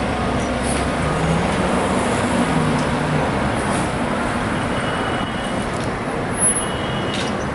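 Steady city street traffic noise with the low hum of idling heavy vehicle engines from fire trucks standing by and passing cars. A brief sharp click sounds about six and a half seconds in.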